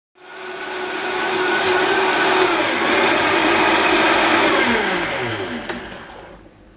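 Vitamix blender motor running at high speed, blending a fruit-and-spinach smoothie. About four and a half seconds in it is turned down and off, and its whine falls in pitch as the motor spins down, with a click near the end.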